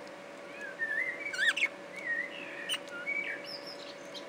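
Budgerigar warbling: a quick run of wavering, gliding whistled chirps that starts about half a second in and stops shortly before the end, loudest about a third of the way through.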